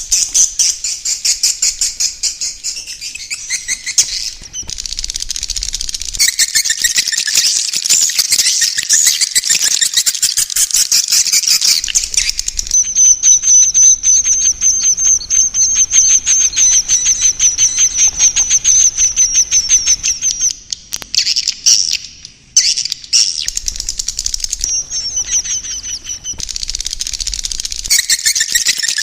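Swiftlets calling in a roosting ('inap') recording: fast, high-pitched chattering and clicking, with a long, steady, high buzzing trill through the middle stretch. This is the kind of call played to draw swiftlets in to roost.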